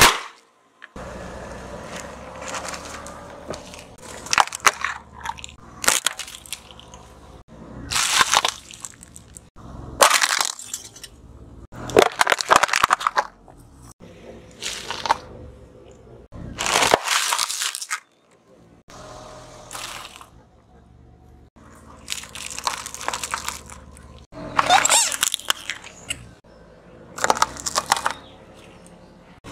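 A car tyre rolling over and crushing one object after another, a dozen or so separate crunching, cracking bursts about every two seconds, with quieter gaps between; one of the objects is a bunch of spring onions.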